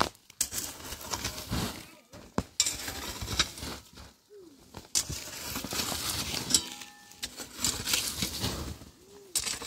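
Gravel and small stones raked with a flat wooden-bladed rake, the stones scraping and clinking. It comes in several strokes with short pauses between them.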